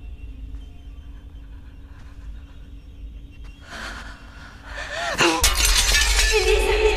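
Film sound design: a quiet eerie drone, then a breathy rush that builds into a loud crashing, shattering burst about five seconds in. Wordless choir-like singing swells up out of it near the end.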